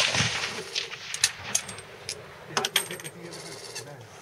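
The echo of a full-bore rifle shot dies away over about a second, followed by a scatter of sharp metallic clicks and clinks of rifle actions and spent brass at the firing line.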